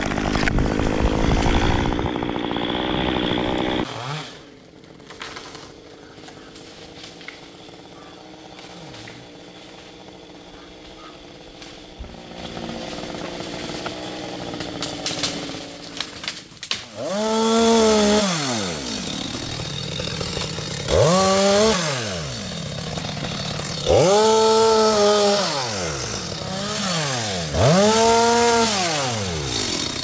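Two-stroke chainsaw running at high speed, then dropping to a quieter idle for about twelve seconds. It is then revved up and back down four times, each rev a rising and falling whine about two seconds long.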